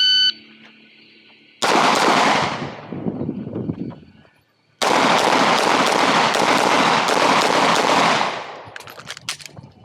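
A shot timer's short electronic start beep, then a Glock 19 Gen 5 9mm pistol fired in fast strings. The first string lasts about two seconds, and after a brief pause a longer string of rapid shots runs for three to four seconds. Several more spaced shots follow near the end.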